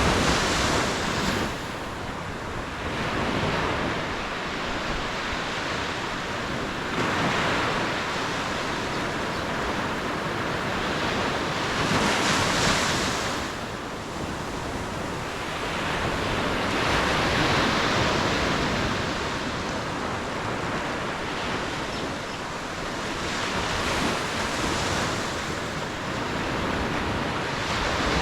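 Ocean waves breaking and washing up on a beach, the surf swelling and falling back every few seconds.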